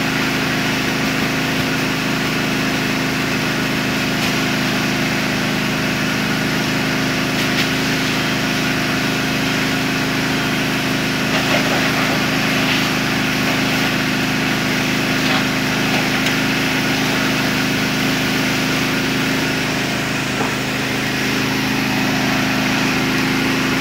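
A fire engine's motor running steadily at a constant speed, with a steady hiss over it.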